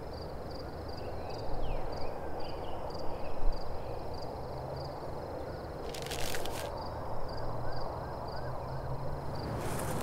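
Night-time outdoor ambience: a high insect chirp repeating steadily about three times a second over a steady background hiss, with a brief rustling burst about six seconds in.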